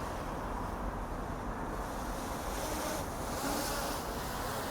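Steady low outdoor rumble of wind on the microphone over distant road traffic.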